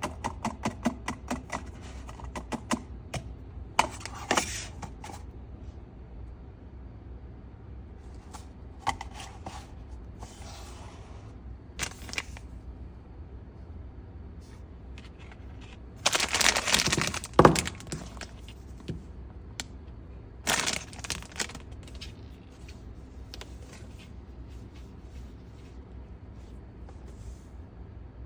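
Blind-box toy packaging being handled and opened: a quick run of small clicks and taps, then scattered rustles and crinkles of cardboard and plastic wrapping. The loudest is a crinkling burst of about two seconds around sixteen seconds in. A steady low hum runs underneath.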